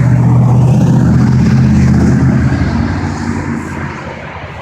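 Motor vehicle running on the freeway: a loud, steady low engine and road drone that fades off from about three seconds in.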